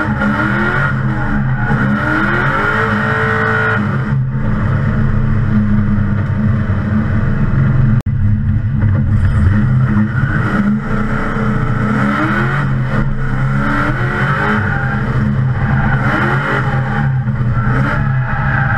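LS2 6.0-litre V8 in a drift-built Nissan 350Z, heard from inside the cabin, revving up and down hard through drifts, with tyres squealing at times.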